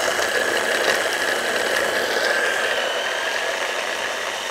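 Electric mini chopper's motor running continuously with a steady whine, its blades chopping basil, toasted almonds, sun-dried tomatoes and goat's cacioricotta into pesto. The whine sags slightly in pitch as the blades work through the mix.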